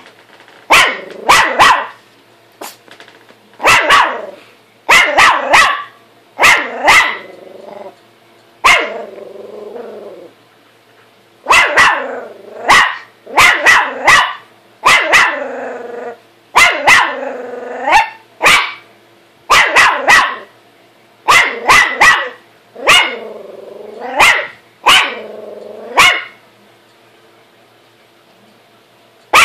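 Small dog barking repeatedly in clusters of two or three sharp barks, some drawn out into growls, reacting to its own reflection in a mirror. It falls quiet for a few seconds near the end.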